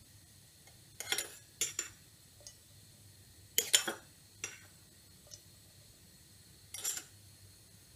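Metal kitchen utensils clinking and clattering on steel cookware in four short clatters, the loudest about halfway through.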